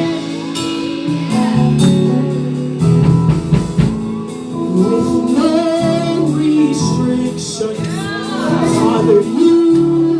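Live gospel praise-and-worship music: voices singing over a band, with held chords and steady drum hits.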